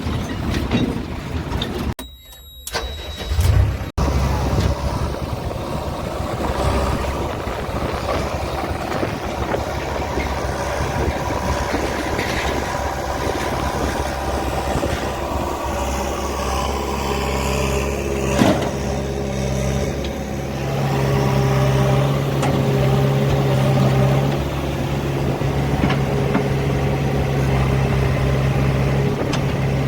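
Diesel engine of heavy farm or earthmoving machinery running steadily, its note growing a little stronger about two-thirds of the way in. The sound cuts out briefly about two seconds in.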